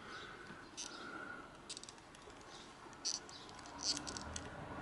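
Faint, scattered small clicks and light handling noise as an old electrolytic capacitor is fitted into an LCR meter's test clip.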